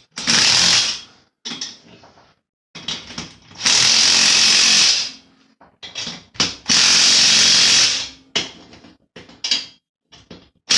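Impact wrench hammering a nut tight on a bolt in three bursts: a short one of about a second, then two of about a second and a half each, with small handling clicks between. A fourth burst starts at the very end.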